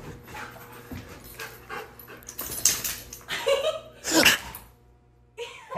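Siberian husky vocalising in a few short bursts, the loudest about four seconds in, over a steady low hum.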